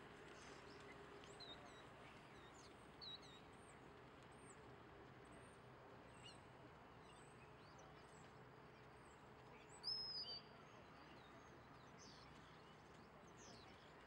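Faint outdoor ambience with small birds chirping, short high calls scattered throughout and the clearest call about ten seconds in.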